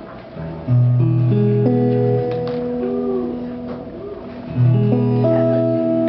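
Acoustic guitar chords strummed and left to ring, struck about a second in and again near the end. It is a quick check of the guitar's tuning.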